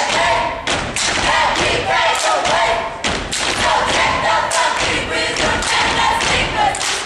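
Step team stomping and clapping in unison, with sharp beats in a quick rhythm and a group of voices chanting over them.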